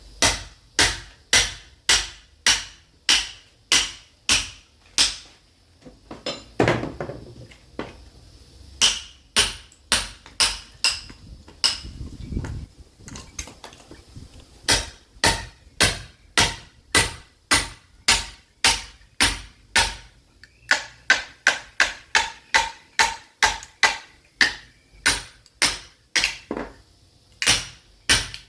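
Sledgehammer striking a steel chisel driven into a log of caviúna wood to split it: a steady run of sharp metal-on-metal blows, about two a second, each with a short ring. The blows pause briefly twice and come faster for a while in the second half.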